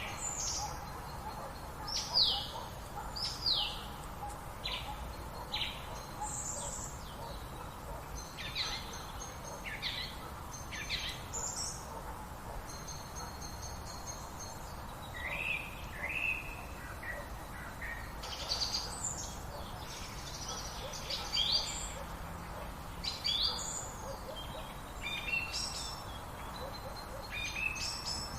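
Several birds calling and singing, short high chirps and quick downward-sweeping notes coming every second or so, over a steady low background hiss.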